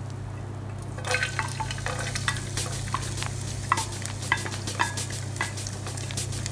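Chopped garlic sizzling and crackling in hot cooking oil in a nonstick frying pan as it is sautéed. The crackle starts about a second in, over a steady low hum.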